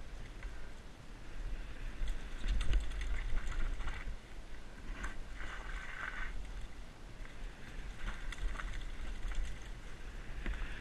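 Canyon Torque FRX freeride mountain bike descending a dirt trail, heard from a helmet-mounted camera: wind buffeting the microphone as a low rumble, tyre noise on the dirt, and clicks and knocks from the bike over bumps, loudest about two to four seconds in.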